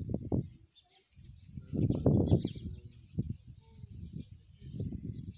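Small birds chirping and twittering, with louder irregular bursts of low rumbling noise, the strongest about two seconds in.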